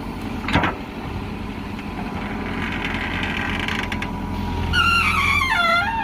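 JCB backhoe loader's diesel engine running steadily, with a sharp knock about half a second in. Near the end a high pitched sound wavers and falls in pitch for about a second over the engine.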